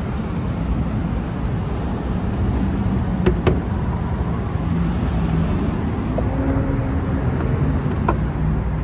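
Steady low rumble of motor-vehicle noise, with one sharp click about three and a half seconds in.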